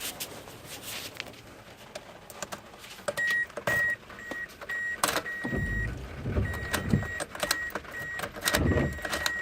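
A car's high warning chime beeping about twice a second, with one longer beep, over clicks of a freshly cut key being worked in the Toyota's lock and ignition. Two short low rumbles come in the middle and near the end.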